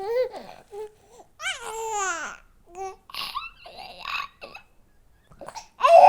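A dog "talking": a run of varied short whines and yowls that swoop up and down in pitch, with a longer arching call about a second and a half in and a louder one starting near the end.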